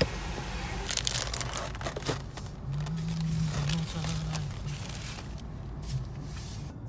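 Crinkling and rustling handling noise inside a car, over a low steady car hum.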